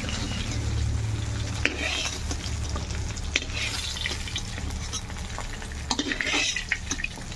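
Fish pieces sizzling in hot mustard oil in a wide metal kadai, with a metal spatula scraping and clicking against the pan a few times as the fried pieces are lifted out.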